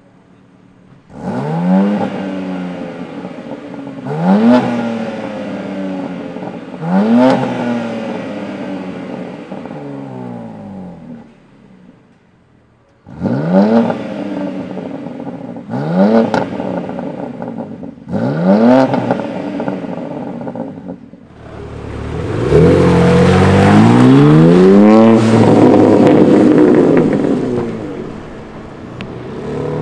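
BMW G80 M3's twin-turbo inline-six starting and revving on the spot with short throttle blips, then shut off. It is restarted in Sport+ mode, blipped twice more, and then accelerates away hard about 22 s in with a long rise in revs, fading near the end.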